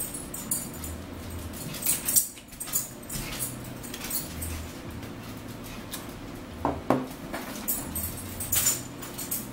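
Close-up eating sounds: chewing, with forks clicking and scraping on plates in scattered short clicks. A brief squeak sounds about seven seconds in.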